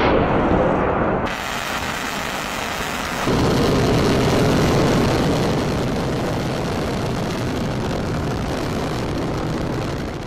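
Long March 11 solid-fuel rocket's motor at liftoff: a loud, steady rush of rocket noise that brightens about a second in and grows louder about three seconds in.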